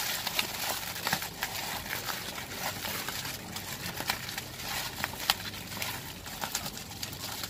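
Bubble wrap crinkling and rustling as it is pulled and unwound by hand from a bottle, with many irregular sharp crackles.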